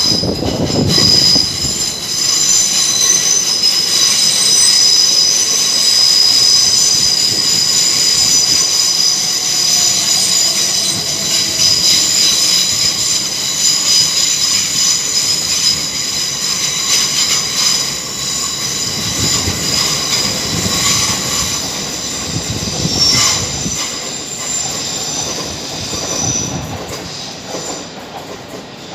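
Train moving slowly past with a high, steady metallic squeal from the wheels over a low rumble, fading near the end.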